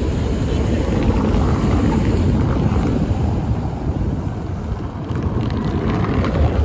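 PCC articulated tram running on street track over a cobbled road, a steady low rumble mixed with wind buffeting the microphone. A car passes close near the end.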